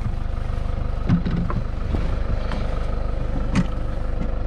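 Vehicle engine running steadily, with a few short knocks or rattles over it.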